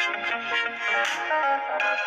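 A stock Samsung Galaxy ringtone playing: an electronic melody of bright, synthesizer-like notes.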